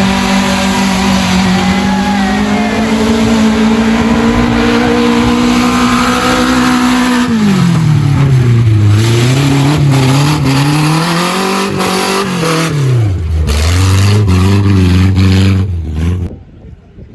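Off-road vehicle engine working under load: the revs hold steady for several seconds, dip and rise twice, then fall to a low rumble and cut off suddenly near the end.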